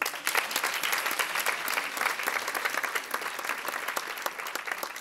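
Audience applauding: dense, steady clapping that eases off a little toward the end.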